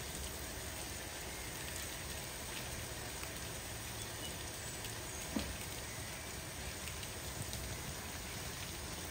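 BR Standard Class 4 2-6-4 tank steam locomotive standing with steam escaping, a steady hissing rush over a low rumble. One short click about five seconds in.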